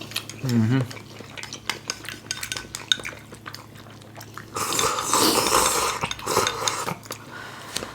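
Metal utensils clinking and scraping against bowls and the pot of stew in a run of sharp clicks, with a louder noisy stretch of about a second and a half midway.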